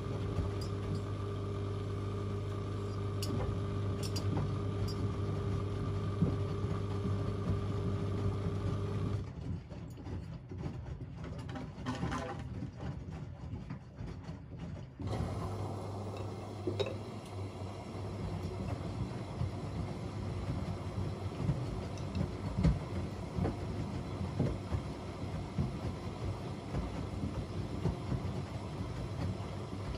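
Front-loading washing machines (AEG Öko-Lavamat 88840 and Miele Novotronic W 985) running an easy-care wash: a steady motor hum with scattered clicks and knocks from the turning drums. The hum drops away about nine seconds in and starts again about six seconds later, as the drum pauses and resumes.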